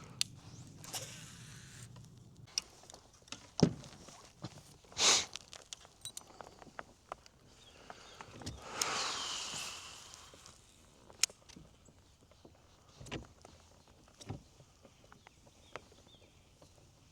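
Scattered light knocks and clicks of gear being handled on a kayak, with a brief rushing swish about nine seconds in.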